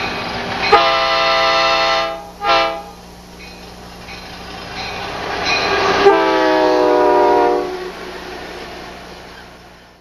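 Amtrak diesel locomotive's Nathan K5LA five-chime air horn: a long blast, a short one, then after a pause a longer blast that drops slightly in pitch as the train passes. A steady diesel engine drone and rail rumble run underneath.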